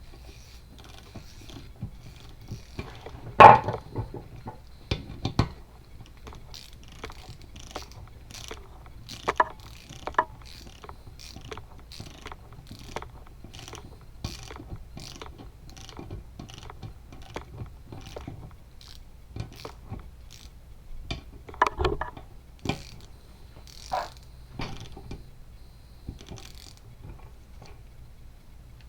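Ratchet wrench clicking in a steady run of about two clicks a second as bolts are turned during engine reassembly, with a few louder clanks of metal tools or parts.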